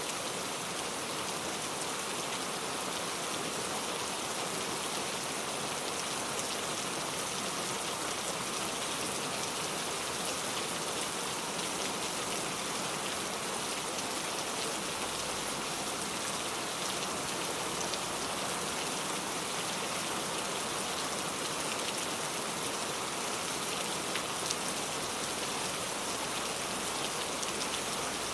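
Steady rain falling, with a dense patter of raindrops on a hard surface and occasional individual drops standing out.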